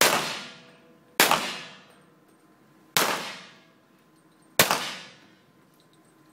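Four centerfire target-pistol shots, about a second or two apart, each ringing out with a long echo in the indoor range hall.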